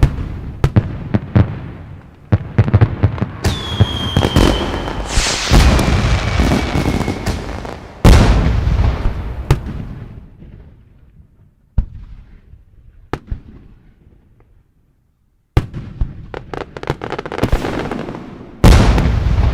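Fireworks display: a series of aerial shell bursts, booms with crackling tails, loudest about eight seconds in and again near the end. Two whistling tones sound between about three and seven seconds in, the first falling, then holding steady, and the bursts pause briefly about two-thirds of the way through.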